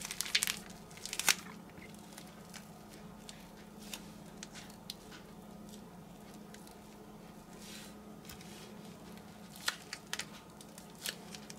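Plastic Ziploc bag crinkling in the hands as deviled-egg filling is squeezed out of its cut corner, with soft squishes and a few sharp little clicks, mostly in the first second or so and again near the end. A faint steady hum runs underneath.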